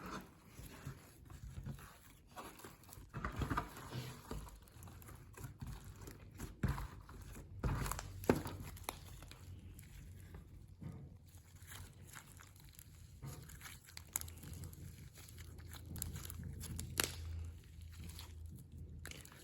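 Homemade glitter slime being mixed: faint, irregular handling sounds with scattered sharp clicks.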